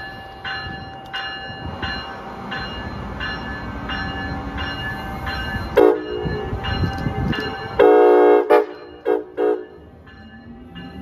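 A locomotive bell strikes about one and a half times a second over the rumble of a train. The train's horn cuts in with a short blast just before the middle, then a longer, louder blast, followed by a couple of quick short toots.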